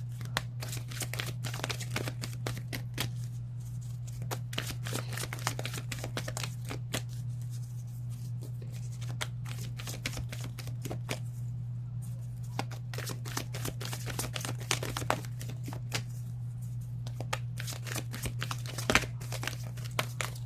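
A deck of oracle cards being shuffled and handled: a long run of irregular light card clicks and snaps, one a little louder near the end, over a steady low hum.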